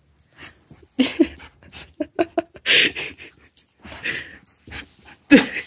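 A husky-type dog gives several short whines and yips, with breathy huffs between them.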